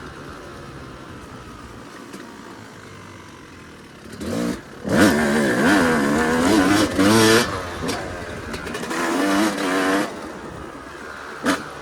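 Yamaha YZ250 two-stroke dirt bike engine running low and quiet for about four seconds, then blipped and revved hard, its pitch climbing and dropping again and again, with a brief let-off near the end.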